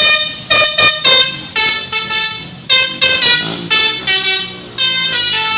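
Telolet multi-tone air horn playing a quick run of short, loud notes, two or three a second, each note at a different pitch so that they form a jingle.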